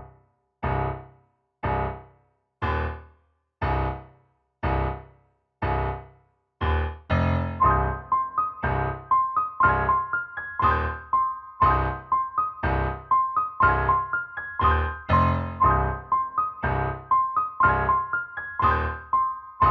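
Intro music on electric piano: a low chord struck about once a second and left to fade, joined about seven seconds in by a higher repeating melody.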